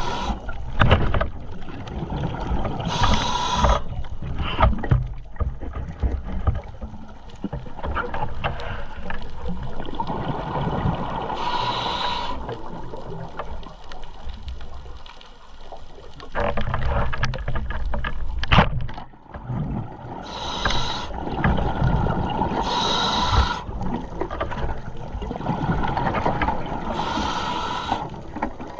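Underwater rumble of a diver moving through the water, picked up by a camera in a waterproof housing, with about five short hissing bursts spread through it.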